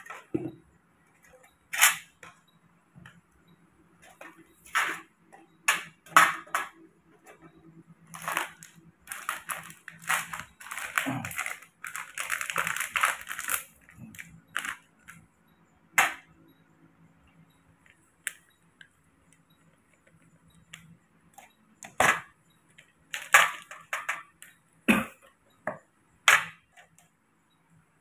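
Irregular sharp clicks, taps and knocks, with a longer scraping, rustling stretch about midway, from milk formula being made up by hand.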